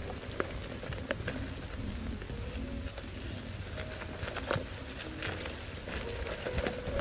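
Hail pattering and ticking steadily, with a few sharper clicks, over a low rumble.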